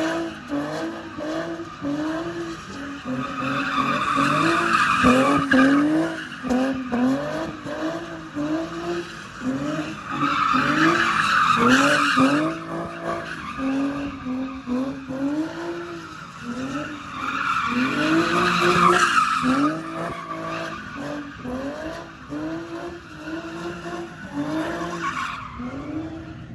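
A car drifting with its tires squealing, the engine revved up and down in quick surges about once a second. The squeal swells loudest in long stretches near the start, around the middle and about two-thirds of the way through.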